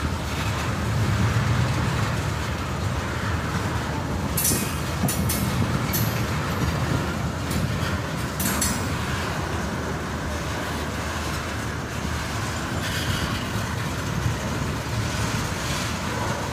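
Freight train of railroad tank cars rolling steadily past: a continuous low rumble of steel wheels on rail, with a few brief sharp high-pitched sounds between about four and nine seconds in.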